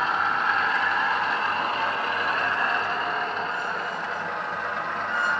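Loksound 3 sound decoder in a Bachmann OO gauge Cravens class 105 diesel multiple unit model, playing a steady diesel engine running sound through the model's small speaker as the unit runs along the track.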